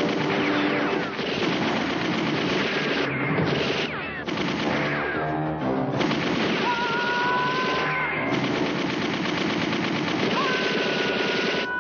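Action-film soundtrack of rapid gunfire with impacts on metal drums, over background music. A steady high tone sounds twice in the second half.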